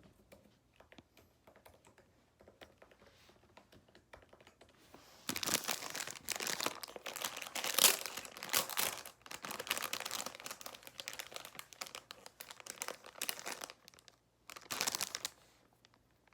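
Bread packaging being handled and opened, crinkling and rustling: faint at first, then loud from about five seconds in, with a short break near the end.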